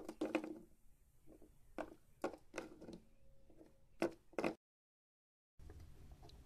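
Plastic Littlest Pet Shop figurines being handled and set down on a tabletop: a string of light clicks and knocks, then about a second of dead silence and faint room hiss.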